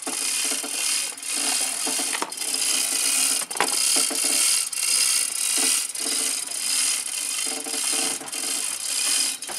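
Heavy speaker road cases being shoved and rolled over rough ground: a continuous rough scraping rattle that swells and eases, with a couple of sharp knocks.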